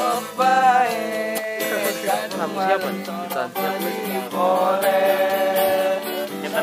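A man singing a slow, sad song with long, wavering held notes, accompanied by an acoustic guitar.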